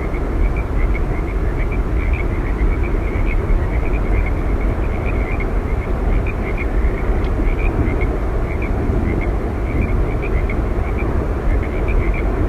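Steady rushing roar of Yosemite Falls, falling water heaviest in the low end, with a constant scatter of short high chirps over it.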